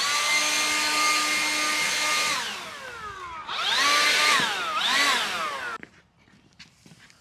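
Electric power tool motor run up to speed and held for about two seconds, then winding down; it is triggered again about three and a half seconds in, dips briefly in speed, and cuts off about two seconds later.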